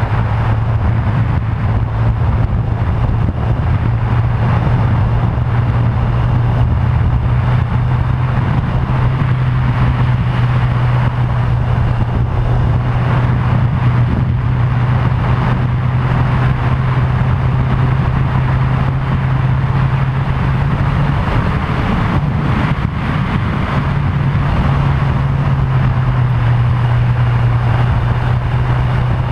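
Motorcycle engine running at a steady cruising speed under a continuous rush of wind over the camera. The steady engine note drops away about 21 seconds in and comes back about three seconds later.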